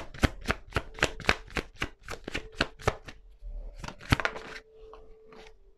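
Tarot cards being shuffled by hand: a quick run of crisp card snaps, about four or five a second, thinning out after about three seconds, with one last louder snap about four seconds in.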